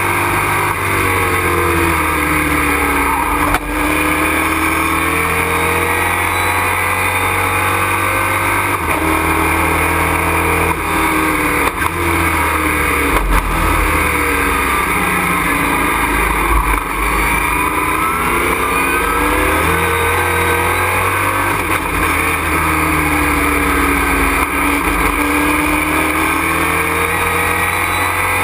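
Race truck's engine heard from inside the cockpit at racing speed, its pitch repeatedly falling and then climbing again as the truck brakes, shifts and accelerates, with a few brief sharp knocks.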